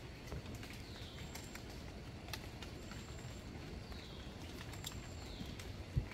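Forest ambience of small birds calling: short falling chirps and a thin high whistle every second or two, with scattered clicks over a low rumble. A single dull thump near the end.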